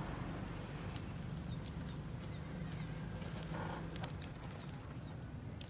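Crowned hornbills tearing at aloe leaves with their bills: scattered sharp clicks and snaps over a steady low hum, with a few short, falling bird chirps.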